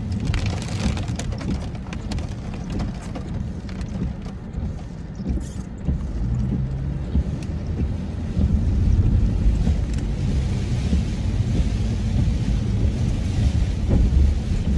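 Car cabin noise while driving in rain: a steady low rumble of engine and tyres on wet road with a rain hiss, which gets louder about halfway through.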